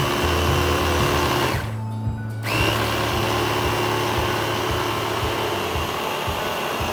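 Baby food maker's blender churning a thick green avocado mixture in two runs: it stops about a second and a half in, starts again with a short rising whine a second later, then runs steadily until it cuts off near the end.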